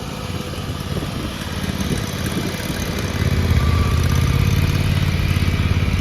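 Gas engine of an AGT MY50R mini excavator running steadily, getting louder about three seconds in as the machine works through its full 360-degree swing.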